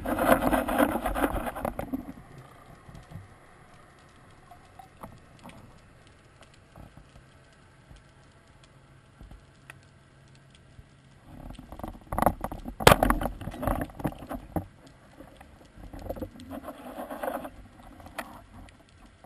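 Underwater swishing and rustling with sharp clicks and knocks, heard through a waterproof camera housing on a speargun as the diver moves through the water. It comes in bursts: about two seconds at the start, a louder stretch past the middle with the sharpest clicks, and a shorter burst near the end.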